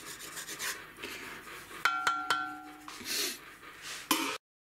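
Wooden spatula scraping lightly in a cast-iron roaster. About two seconds in come three quick taps on the pot, which rings briefly with a clear, bell-like tone.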